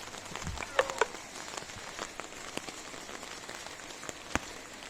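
Steady rain falling, with scattered sharp drip ticks; a couple of louder taps about a second in and another near the end.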